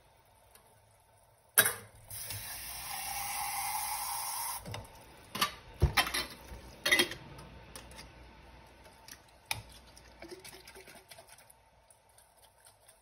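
Kitchen faucet running into a glass jar for a couple of seconds after a sharp knock, the tone rising slightly as it fills, then the jar and its lid clinking against the stainless steel sink several times, with quieter taps after.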